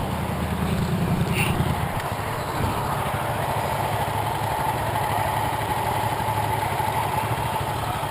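Motorcycle engine running steadily, a little louder for the first couple of seconds and then settling.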